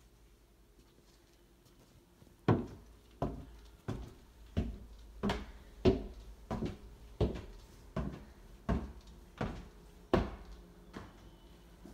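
Footsteps climbing bare wooden stairs: about a dozen heavy, even steps, roughly one and a half a second, that stop about ten seconds in.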